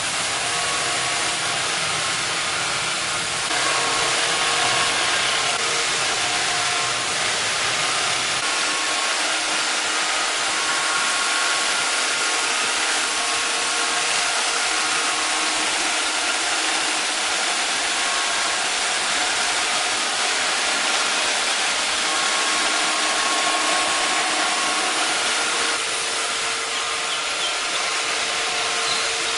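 Vacuum cleaner running with a steady whir and a whine of several fixed tones. It gets slightly louder a few seconds in, and the lowest rumble drops away a few seconds after that.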